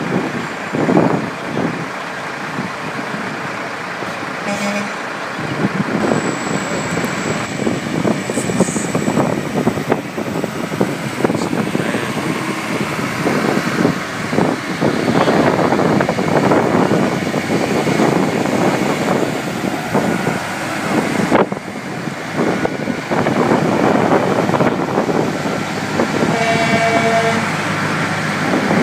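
Mack, Kenworth and Western Star prime movers driving slowly past one after another, their diesel engines running. A short horn toot sounds about five seconds in and a longer horn blast near the end.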